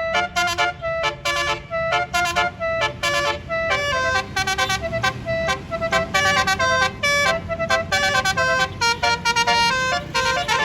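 Bus telolet horn, a Basuri multi-trumpet air horn, playing quick tunes of short notes with several trumpets sounding together, over the low rumble of the bus engine.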